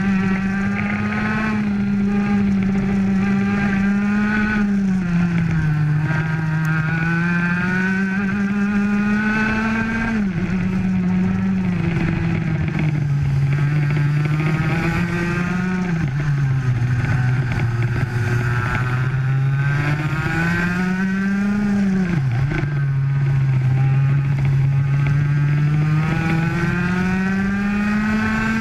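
Onboard sound of a racing kart's two-stroke engine running hard, its pitch climbing steadily under acceleration and dropping sharply as the throttle is lifted for corners, three times, before climbing again.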